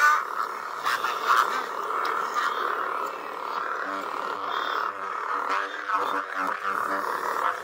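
Lightsaber sound from a Plecter Labs CFX (Crystal Focus X) soundboard, played through the hilt's small speaker: a steady electric hum from the 'Crystal Focus' sound font that swells and wavers as the hilt is swung.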